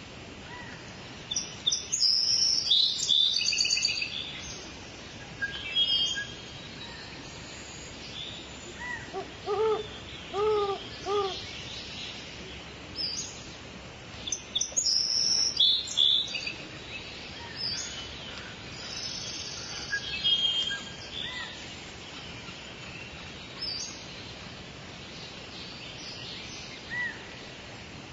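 Woodland birdsong: scattered high chirps and short trills from several birds over a steady faint hiss, with a run of four low, hollow hooting notes about ten seconds in.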